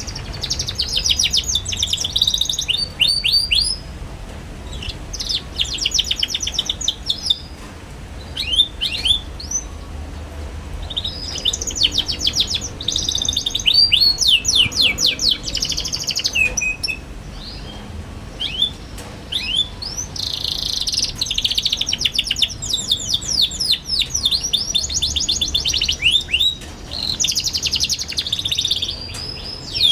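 Young domestic canary singing vigorously in rapid, high twittering trills: phrases of quick repeated chirps broken by short pauses.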